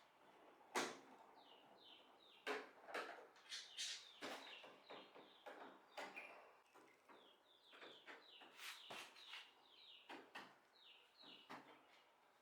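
Faint, scattered clicks and knocks of parts and tools being handled, with short, high, falling chirps in between.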